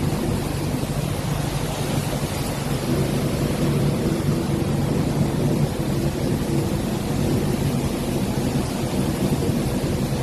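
A heavy truck engine running as a low hum that fades about four seconds in, over a loud, steady rushing noise.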